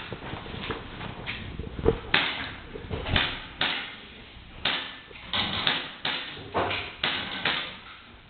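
Airsoft pistol firing a rapid, uneven string of shots, about two a second with some quicker pairs, each a sharp crack with a short fading tail.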